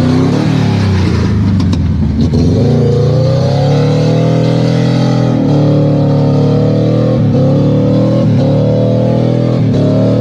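A car engine revving hard and held at high revs, dipping briefly a few times, as a stuck car tries to drive out of deep mud.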